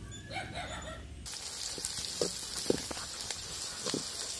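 Sliced onions sizzling in hot oil in an aluminium pot, starting about a second in, while a steel ladle stirs them and knocks and scrapes against the pot several times.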